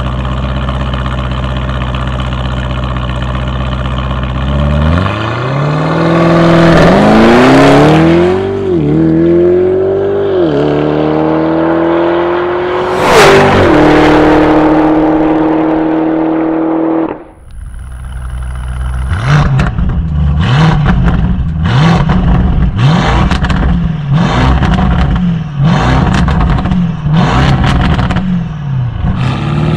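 Hennessey HPE750-tuned Lamborghini Urus twin-turbo V8 idling, then accelerating hard with two quick upshifts and holding high revs. After a brief drop it gives a run of quick rev blips, a little over one a second, with exhaust pops and burbles.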